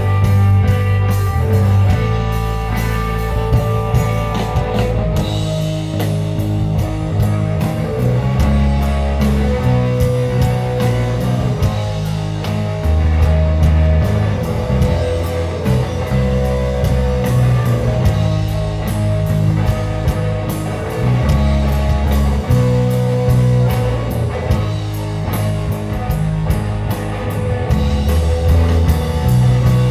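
Live rock band playing loudly, with electric guitar, electric bass and drum kit.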